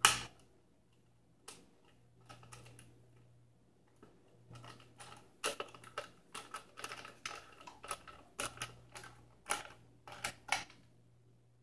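Hard plastic parts of a Nespresso Vertuo Next coffee machine clicking, tapping and scraping as they are handled and fitted together. One sharp click comes at the start, then after a pause a run of irregular quick clicks and scrapes lasts several seconds.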